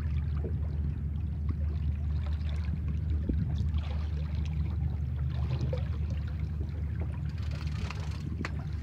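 Water lapping and trickling against the hull of a small outboard boat, over a steady low rumble.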